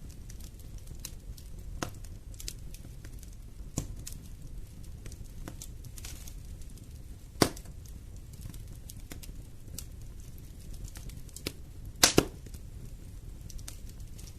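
Fire burning in a fireplace: a steady low rumble with scattered crackles, a sharp pop about halfway through and a louder double pop near the end.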